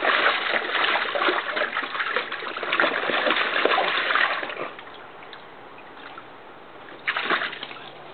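A dog splashing and pawing at the water in a plastic kiddie pool, busy and continuous for about four seconds, then dying down to quiet, with one short burst near the end.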